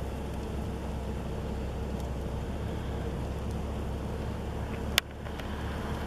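Wind blowing hard across the microphone as a steady low rumble, with one sharp crack about five seconds in.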